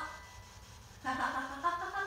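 A person's voice makes a short wordless exclamation starting about a second in, with a single sharp click partway through it.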